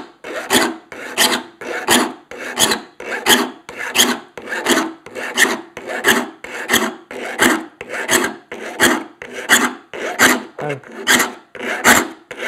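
Saw file rasping across the steel teeth of a crosscut handsaw in steady, even strokes, about three every two seconds, as the teeth are sharpened to a crosscut.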